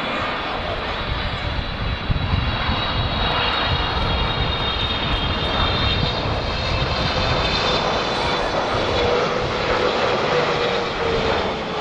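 Boeing 777-300ER's GE90 turbofans on final approach, passing close by: a steady jet noise with high whining fan tones and a lower tone that sinks slightly in pitch near the end. Low wind rumble on the microphone runs underneath from about two seconds in.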